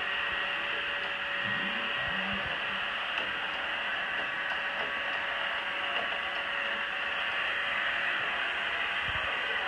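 Robot vacuum cleaner running: a steady hiss from its suction fan and brushes with a faint hum, and a few faint knocks.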